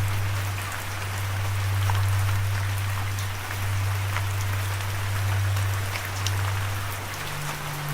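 Steady rain, an even hiss with many separate drops ticking through it, over a low steady tone. About seven seconds in, the tone steps up to a higher pitch.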